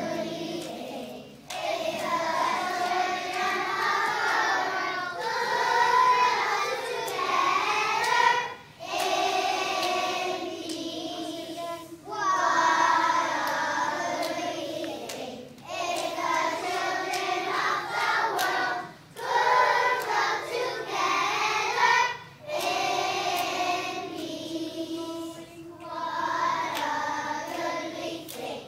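A large children's choir singing a song, in phrases of a few seconds each with short breaks for breath between lines.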